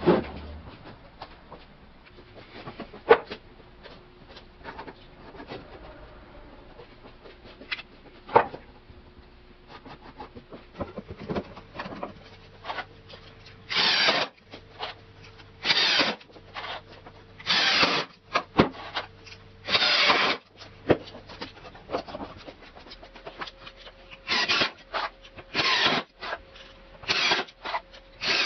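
Screws being driven into pine 2x4s with a Ryobi cordless driver, in about eight short bursts of half a second to a second each from about halfway on. Before that, scattered knocks and clicks as the boards are handled and positioned.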